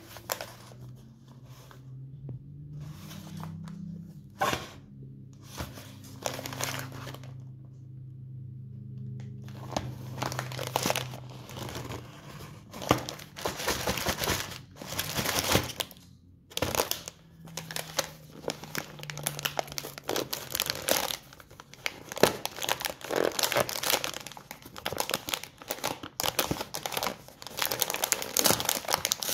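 Cardboard Raffaello candy box with a clear plastic window being handled and turned, its card and plastic crinkling and scraping under the fingers. From about ten seconds in the sounds get denser and louder as the box's lid flap is worked and torn open.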